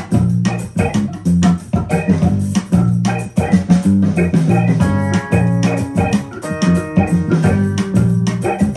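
Recorded music played back over series-wired Tannoy loudspeakers driven by a Threshold SA/2 amplifier, heard in the room. It has a heavy rhythmic bass line, and from about halfway long held chords come in.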